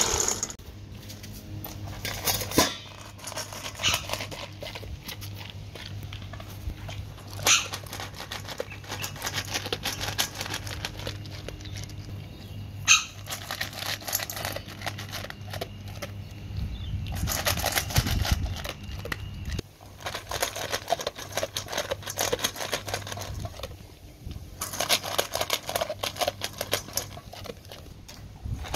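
Dry kibble rattling into a stainless-steel dog bowl at the very start, then a dog eating from the bowl: crunching kibble and pushing pellets against the metal, with a few sharp clicks and busier bouts of crunching. A steady low hum runs underneath.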